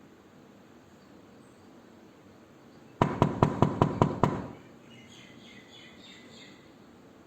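A rapid run of about seven knocks on a door, about five a second, starting about three seconds in, each with a short ring.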